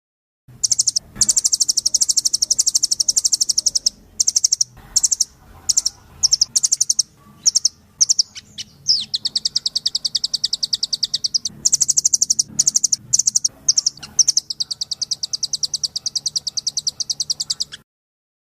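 Recorded songbird song used as masteran tutoring for captive songbirds: fast, high trills and chattering runs of rapid repeated notes. It cuts off abruptly near the end.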